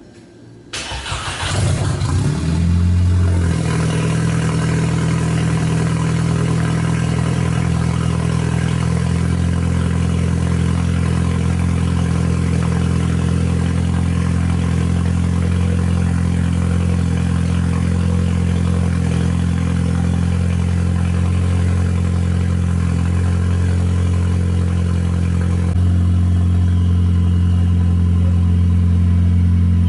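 Car engine with a newly fitted K04 turbo starting about a second in, with a brief crank before it catches, then idling steadily.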